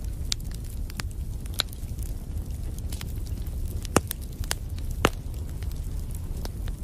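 Wood fire crackling: irregular sharp pops and snaps over a steady low rumble, with two louder pops about four and five seconds in.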